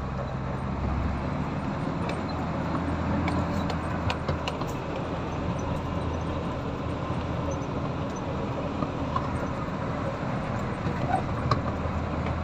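Caterpillar 320 hydraulic excavator's diesel engine running steadily while working, with a few light clicks and knocks in the first half.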